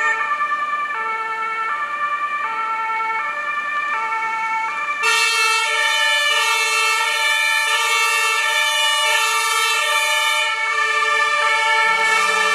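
German two-tone emergency sirens sounding from vehicles in a slow parade, each stepping back and forth between two pitches. A second, louder and brighter siren joins about halfway through and overlaps the first for several seconds before dropping away.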